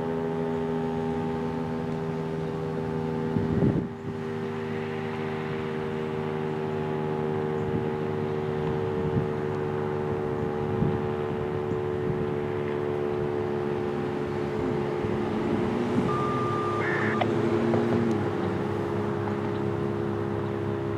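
Federal Signal STH-10 dual-tone rotating warning siren sounding the Alert signal: a held, steady two-note chord with no rise or fall in pitch.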